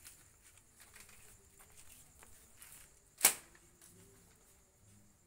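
A single sharp crack or knock a little over three seconds in, by far the loudest sound, over a few faint scattered clicks.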